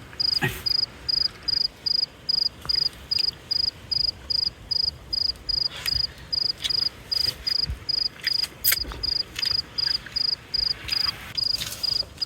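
A cricket chirping steadily, short high chirps about two and a half times a second, with a few faint knocks and rustles in between.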